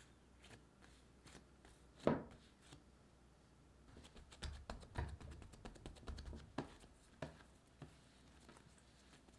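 Hands handling soft bread dough: one loud thud about two seconds in as the risen dough is knocked back to degas it, then a run of soft pats, slaps and clicks as the dough is worked and rounded on the countertop.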